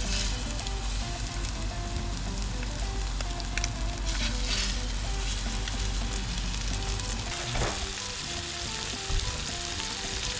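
Seasoned fish fillets frying in avocado oil in a large sauté pan, with a steady, even sizzle throughout.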